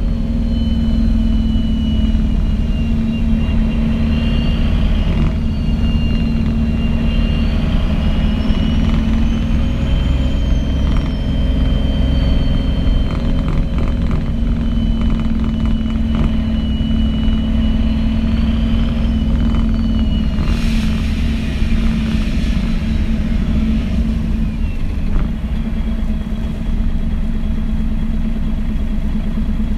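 MAN NG 313 articulated bus with a Voith automatic gearbox, heard from inside the passenger cabin while it drives: a steady, loud diesel drone with a high whine that rises and falls in pitch several times.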